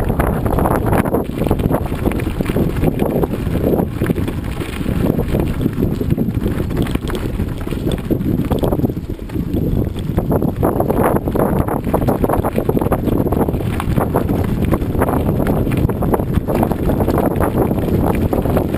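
Bicycle rolling fast over a rough gravel road, tyres crunching on loose stones and the bike rattling over the bumps, with wind buffeting the microphone.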